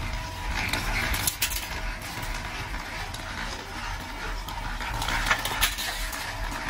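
Small electric-motor-driven roller machine running with a steady hum, with scattered light metallic clicks and rattles as thin metal strips are handled at the rollers.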